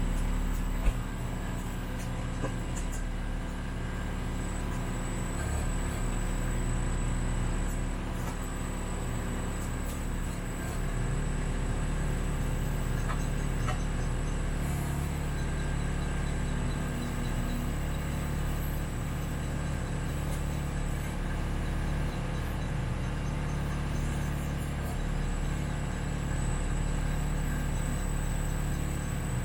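Kubota B2650 tractor's three-cylinder diesel engine running steadily while working the BH77 backhoe. There is a single sharp click about a second in.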